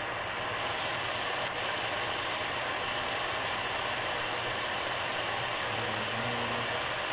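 Shortwave static and hiss from a Sangean ATS-909X2 receiver's speaker in AM mode while it is tuned up the 31 m band, with no station coming through: the band is dead at this hour. A faint low tone comes up briefly about six seconds in.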